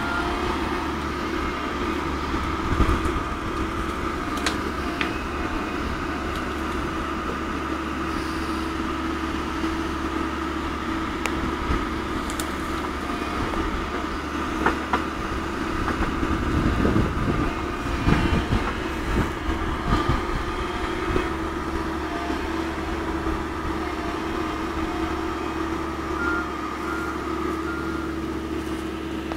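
Komatsu PC130-8 excavator working, its diesel engine and hydraulics running steadily with a constant hum and whine as the bucket digs and lifts out of a watercourse. Several knocks come around the middle.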